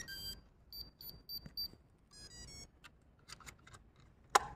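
Electronic start-up beeps from the FW450 V3 RC helicopter as its battery is plugged in: the end of a stepped multi-note tune, then four short identical high beeps about a third of a second apart. A few soft clicks follow, and a single sharp click near the end is the loudest sound.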